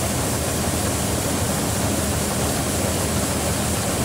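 Rice combine harvester running steadily: a dense, even noise of engine and threshing with a low hum underneath.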